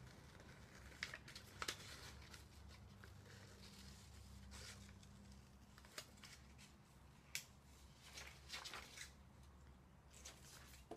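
Scissors snipping through paper, faint and irregular, as a circle is cut out of a paper sheet.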